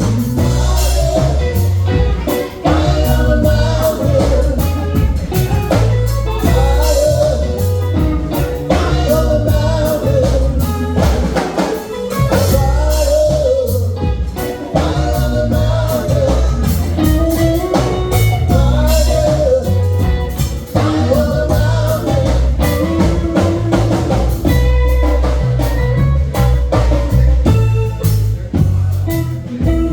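Live band playing a jam-rock song: steady drum kit and bass under a wavering melodic lead line.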